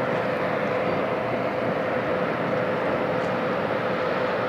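Steady mechanical rumble with a constant hum: a tractor tug's diesel engines working hard, blended with a freight train rolling across a steel rail bridge.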